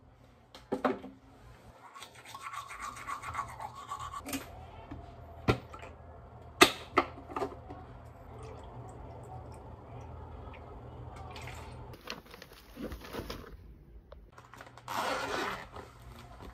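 Toothbrush scrubbing teeth in rapid strokes for a couple of seconds. Then a few sharp clicks as a plastic mouthwash bottle cap is twisted off, and near the end a short burst of rustling.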